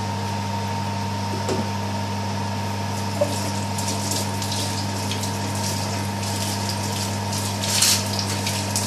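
A steady low hum runs throughout. From about three seconds in it is joined by the soft crackling and bubbling of a pot of watery tomato-and-fish curry coming up to a simmer on the gas hob, busiest near the end.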